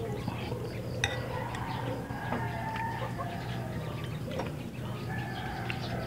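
Metal spoon clinking and scraping against a glass bowl of broth, a sharp clink about a second in and a few lighter taps later.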